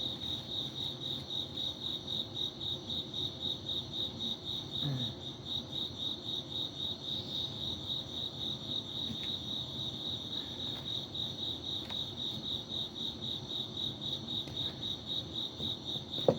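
Crickets chirping in a steady, even rhythm of about three chirps a second.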